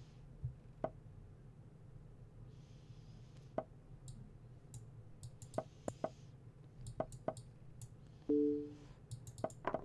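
Computer mouse clicking every second or so as chess moves are made quickly in an online blitz game, with a short electronic two-tone beep about eight seconds in.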